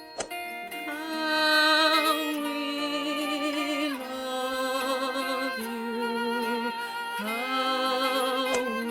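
Music: long held notes with vibrato, moving to a new pitch every second or two, with a sliding rise into the notes about a second in and again near the end.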